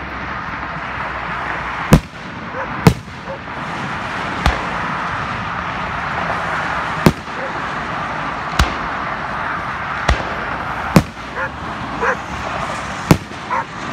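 Aerial firework shells bursting: about eight sharp booms at uneven intervals, the loudest about two seconds in, over a steady background noise.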